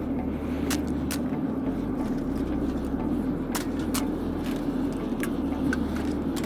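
Propane-fired foundry furnace burner running with a steady roar, with a few sharp clicks scattered over it.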